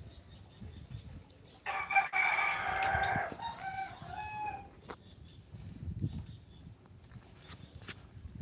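A rooster crowing once, starting a little under two seconds in: one long call that trails off into a few shorter notes.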